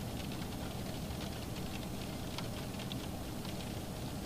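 Heavy rain on the car's roof, heard from inside the cabin as a steady hiss with faint scattered drop ticks.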